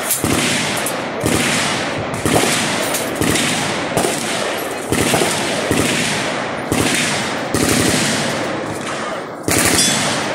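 Heavy gunfire from a firing line: single loud shots about once a second, each trailing off in a long echo.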